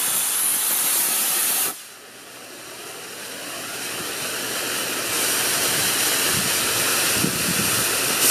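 A single E16 model rocket motor strapped to a hand plane fires with a loud hiss for a couple of seconds, driving the plane along the board. The hiss then drops and a quieter one builds steadily until it cuts off abruptly near the end.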